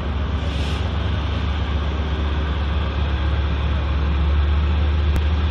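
Heavy engines running steadily, a deep low drone.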